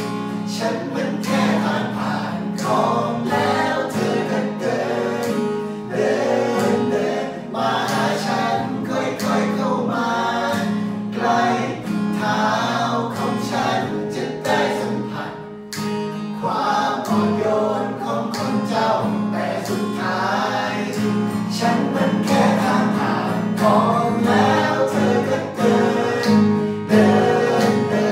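Acoustic guitar strummed through major-seventh and minor-seventh chords while several male voices sing a Thai song together.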